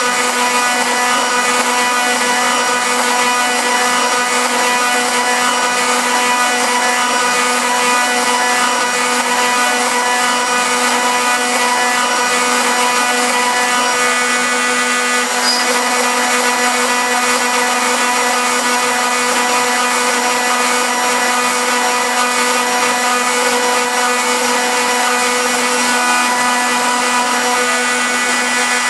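CNC router spindle running at a steady whine while its small bit mills lettering into a wooden disc, with cutting noise over it.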